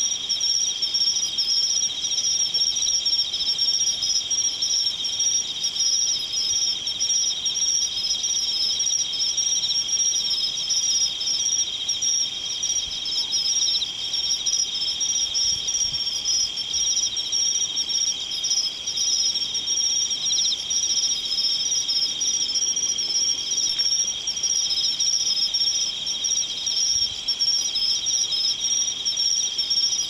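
A chorus of singing insects trilling steadily and without pause, in two high-pitched voices.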